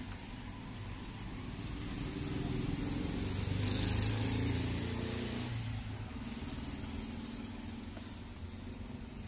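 A motor vehicle's engine running nearby, growing louder to a peak about four seconds in and then slowly fading, as when a vehicle drives past.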